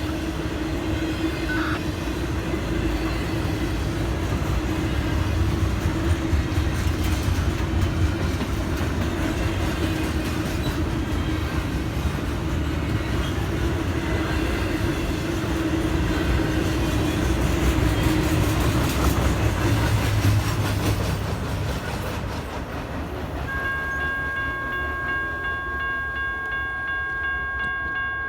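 Norfolk Southern double-stack intermodal train rolling through a grade crossing, a steady rumble of wheels and cars with some rail clatter. It eases off about three-quarters of the way in, when a steady high electronic tone comes on, typical of the crossing's General Signals Type 1 electronic bell ringing again as the gates rise after the train has cleared.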